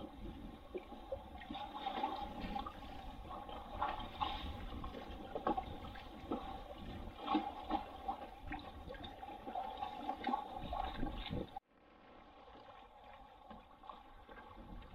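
Lake water rushing and splashing along the hull of a moving sailing trimaran, with many quick, irregular slaps of the bow wave. About 12 s in it drops out suddenly and comes back fainter.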